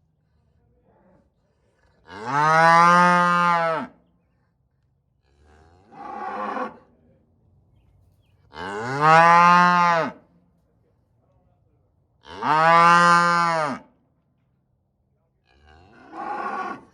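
Cattle mooing: five separate moos, three loud drawn-out ones whose pitch rises and then falls, and two quieter, shorter ones.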